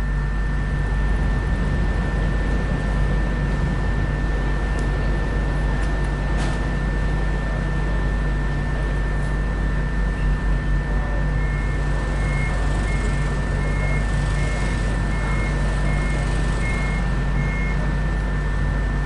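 Heavy road-construction machinery running steadily with a low engine drone. A little past halfway, a reversing alarm beeps about ten times, roughly three beeps every two seconds.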